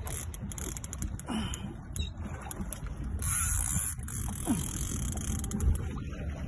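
Wind buffeting the microphone on a small boat, with faint creaks and clicks from a fishing rod and reel being pumped and cranked under the heavy load of a hooked hammerhead shark.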